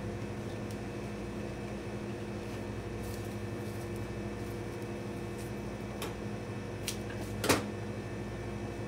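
Steady machine hum of the room, with a few faint rustles and one short, sharper crackle about seven and a half seconds in as blades of bear grass are handled and worked into a foliage arrangement.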